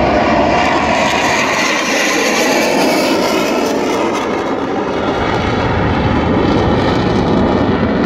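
A MiG-21 jet fighter flying past, its single turbojet engine giving loud, steady jet noise that holds throughout.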